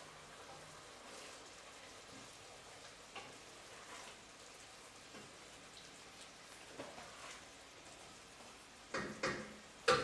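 Faint sizzling and bubbling of a sugar-cake mixture of coconut and sugar simmering in a pot as its water cooks off, with soft scrapes and ticks of a wooden spoon stirring it. A few louder knocks near the end.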